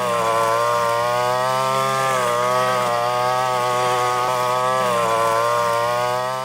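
Small brush cutter engine running steadily at high speed, its pitch wavering slightly, driving the sprayer pump it has been converted to power.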